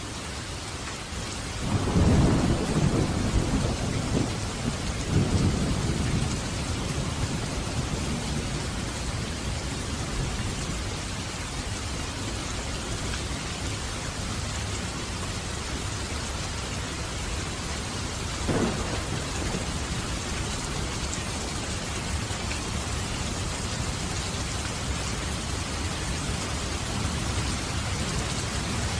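Steady rain falling, with a clap of thunder about two seconds in that rolls on in several low rumbles for a few seconds. A short, sharper crack of thunder follows later, and another rumble starts to build near the end.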